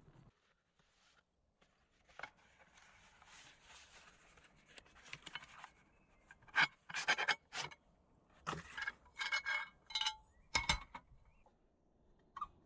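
Cardboard packaging rubbing and scraping as it is handled. In the second half this gives way to a run of sharp metallic clicks and clinks, some briefly ringing, from a small metal camp stove and its parts being handled.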